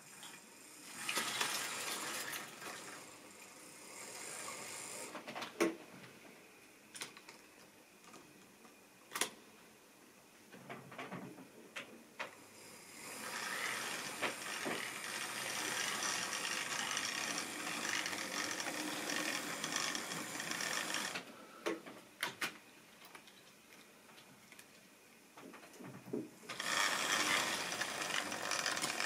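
Model railway steam locomotive's small electric motor and gears whirring as it runs along the track, swelling and fading in long spells, with a few sharp clicks in between.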